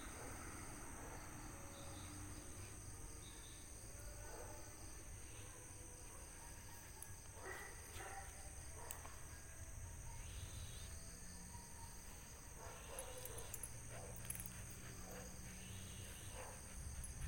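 Faint night chorus of crickets and other insects: a steady, high-pitched trilling in several pitches, with a low background rumble.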